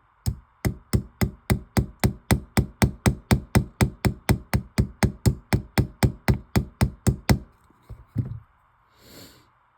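A small hammer tapping a pin in a straight razor's scales, peening it, at about four steady strikes a second. The tapping stops about seven seconds in, followed by two last taps.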